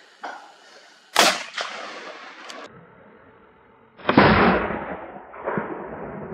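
Two gunshots about three seconds apart, each followed by a long, fading echo.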